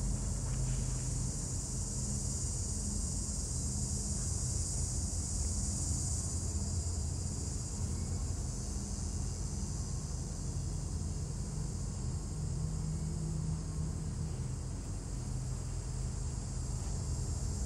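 Norfolk Southern diesel-electric locomotive's engine running steadily at low power as it creeps forward pulling a freight train, with a steady chorus of crickets chirring in the grass.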